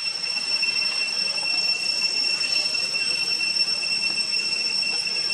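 Steady high-pitched insect drone, one unwavering buzzing tone that neither pulses nor fades.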